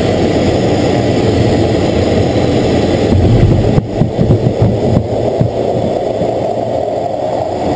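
Jet engine and airflow noise heard inside an F/A-18 fighter's cockpit: a dense, steady low rumble. About four seconds in the sound changes abruptly, with a run of heavy thumps lasting a second or two before the rumble settles again.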